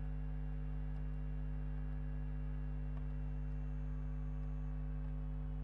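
Steady electrical mains hum with several overtones, picked up by the recording. A faint thin high whine comes in for about a second and a half midway.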